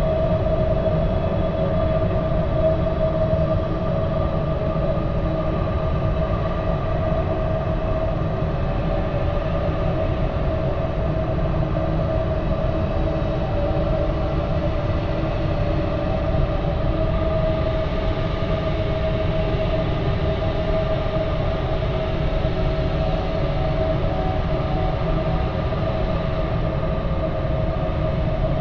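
Eerie ambient drone of a haunted, supernatural sound effect: a steady low rumble with a held, slightly wavering hum above it.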